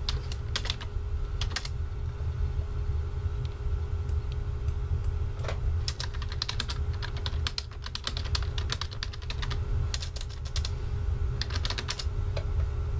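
Computer keyboard being typed on in several quick bursts of keystrokes with pauses between, over a steady low hum.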